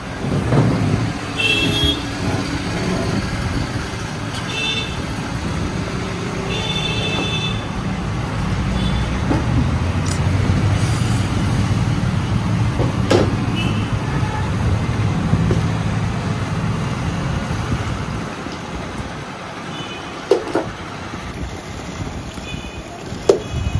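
Road traffic: a heavy vehicle rumbles steadily for most of the time and fades out about three-quarters of the way through. Short horn toots sound several times over it.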